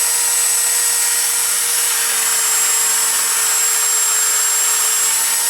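Handheld power grinder running steadily under load, with a constant high whine over a harsh hiss: grinding metal out from between the teeth of a welded motorcycle clutch part so that it will fit.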